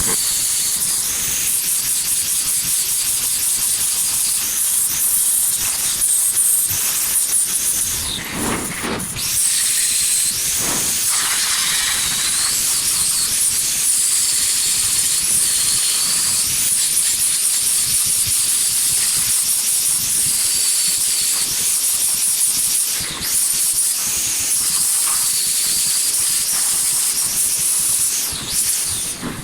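Welding arc hissing steadily on sheet metal, stopping briefly about eight seconds in and twice more near the end as the welder breaks and restarts the arc.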